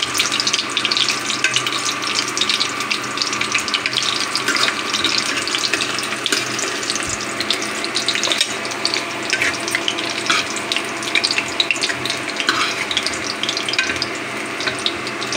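Besan-coated leaf-roll slices deep-frying in hot oil in a kadai: a steady crackling sizzle full of small pops. A faint steady hum runs underneath.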